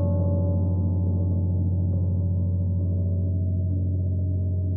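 A gong ringing on in a long, sustained wash of many overlapping low tones with a slow pulsing waver, fading only slightly; a higher ringing tone dies away within the first second.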